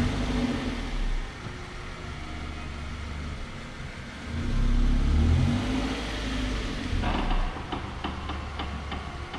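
MAHA shock-absorber test stand shaking the Mazda 3's axle through its damping test: a low drone from the vibrating wheel plates that swells in the middle of the run, with a run of short knocks near the end.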